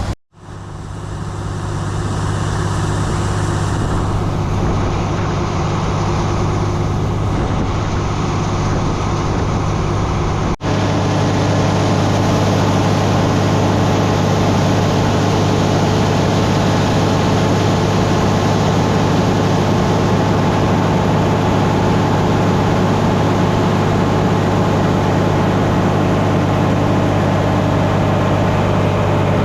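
Steady drone of heavy farm machinery running, a low even hum under a constant rushing noise. It drops out sharply just after the start and breaks once briefly about ten seconds in.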